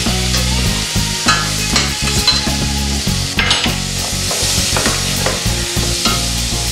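Cauliflower pieces sizzling as they roast in a stainless steel pot, stirred and scraped around with a wooden spoon in quick, repeated strokes, over a steady low hum.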